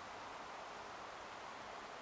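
Steady, faint hiss that stays even throughout, with no distinct sounds.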